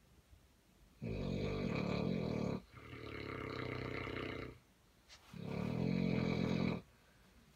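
Neapolitan Mastiff snoring: three long snores of about one and a half to two seconds each. The second, slightly softer one follows straight on from the first, and the third comes after a short pause.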